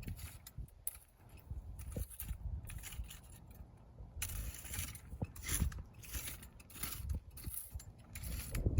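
Irregular scraping and rustling with scattered sharp clicks, from yard work clearing dry weeds off the ground.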